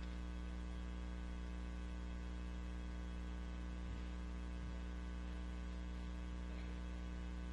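Steady low electrical mains hum with a buzzy edge, picked up through the microphone and sound system.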